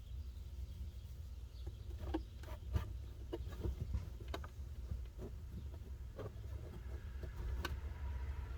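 Scattered light knocks and clicks of a plastic center console being shifted and worked into place in a Jeep XJ, at irregular intervals over a low steady rumble.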